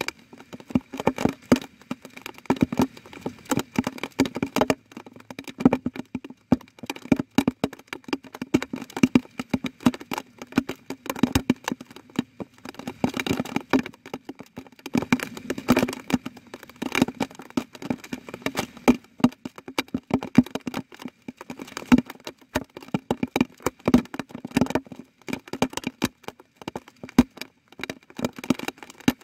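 Water drops falling fast and irregularly onto a water surface, a dense patter of small ticks and splashes.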